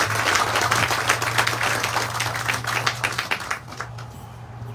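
Seated audience applauding, the clapping dying away about three and a half seconds in.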